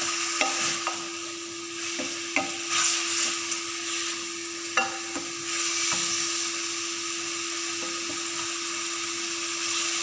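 Thinly sliced chicken frying in a pan with soy sauce and spice powder, sizzling steadily, with a few light taps of a utensil stirring against the pan.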